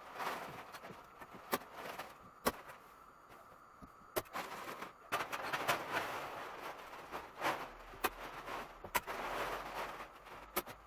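Plastic film rustling and crinkling as a sheet of vapour barrier is stretched and pressed up against ceiling joists, with sharp clicks at irregular intervals.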